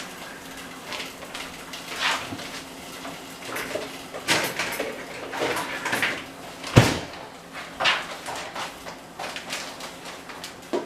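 Intermittent knocks and clatter of kitchen things being handled, with one sharper, heavier thump about seven seconds in.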